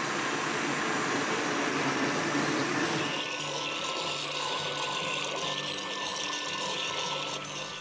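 Countertop blender motor running steadily, puréeing cooked pumpkin and potato with their cooking liquid into a smooth soup base.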